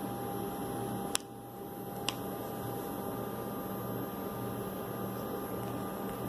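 Steady electrical hum and hiss of room tone, with two sharp clicks about a second and two seconds in.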